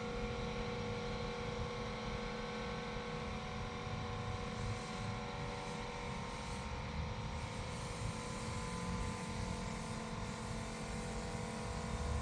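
A steady machine hum with several held tones over a soft noise, unchanging throughout.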